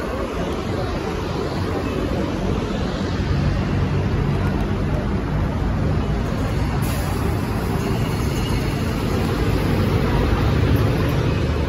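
Steady city traffic noise: cars and motor scooters driving along a busy multi-lane road.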